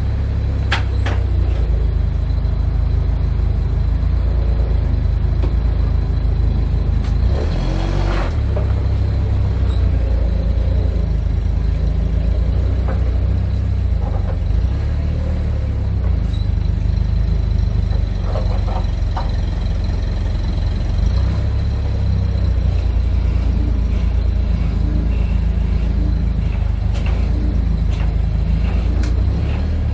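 Heavy truck engine running low and steady, with a brief hiss about eight seconds in.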